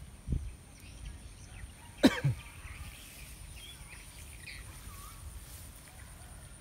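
A single short, sharp cough-like sound about two seconds in, falling steeply in pitch, against quiet field background with faint scattered chirps.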